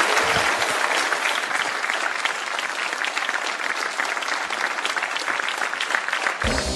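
Studio audience applauding, a dense, steady clapping. The show's closing theme music comes in near the end.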